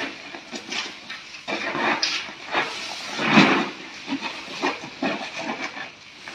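Baby Asian elephant blowing irregular breathy puffs of air through its trunk, with some short low grunts, as it nuzzles a soft toy; the strongest puff comes about three seconds in.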